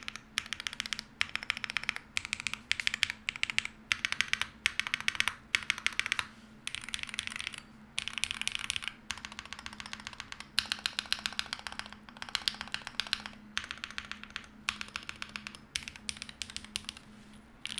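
Typing on an Epomaker Magforce68 Hall effect keyboard with Gateron Magnetic Jade Pro magnetic linear switches and PBT keycaps: quick runs of keystrokes in bursts with short pauses between.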